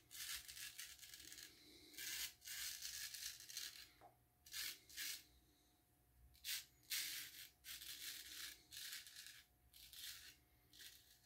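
Full-hollow straight razor scraping through lathered stubble on the neck and jaw in about a dozen short strokes, a faint dry rasp like a knife on toast.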